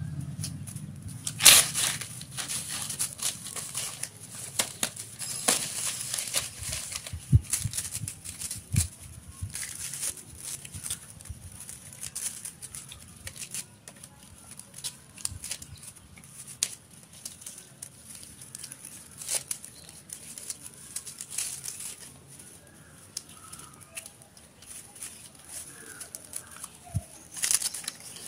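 Paper roll-cap strips being handled: crinkling and rustling paper with scattered small clicks, and one sharp snap about a second and a half in.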